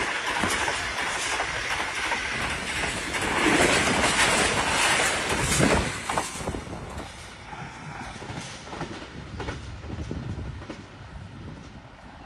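Express passenger train passing close at speed, its coaches' wheels clattering on the rails. It is loudest as the last coach goes by about six seconds in, then fades as the train moves away.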